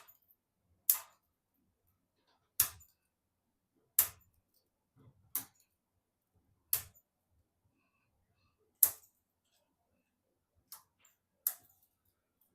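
A series of about nine sharp, short clicks and taps, irregularly spaced one to two seconds apart, with near silence between them: hard parts being handled during a desktop PC assembly.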